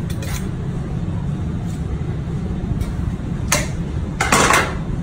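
Knife blade drawn along a honing steel: a few short, sharp metallic strokes, the loudest two near the end, over a steady low rumble.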